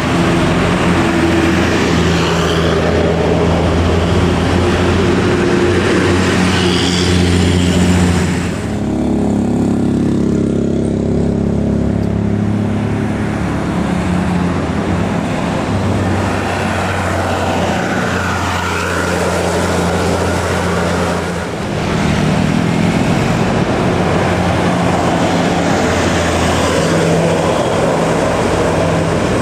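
Heavy diesel engines of tour buses labouring up a steep climb, a steady low running note that changes character about nine seconds in before picking up again. No telolet horn melody stands out.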